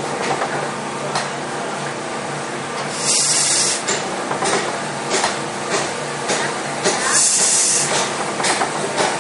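1910 Allis-Chalmers single-cylinder Corliss steam engine running, with a steady run of light clicks about twice a second. A loud burst of steam hiss comes twice, about three seconds in and again near seven seconds.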